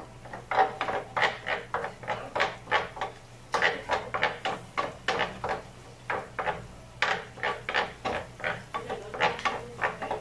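Wooden spoon scraping and knocking across the ridged, coated bottom of a grill pan while stirring melting butter, in quick repeated strokes, about three a second, with short pauses.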